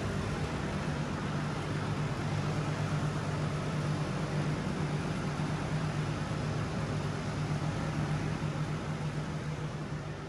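Steady low machine hum with a constant hiss, beginning to fade near the end.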